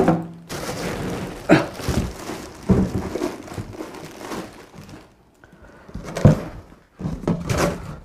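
Plastic wrapping rustling and a cardboard carton being handled, with a few dull thunks as a heavy power amplifier is lifted from its foam packing and set down on a table.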